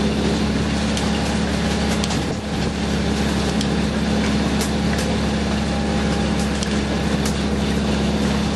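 Fishing boat's engine running steadily, a constant low hum over a wash of noise, with a few sharp clicks and knocks scattered through.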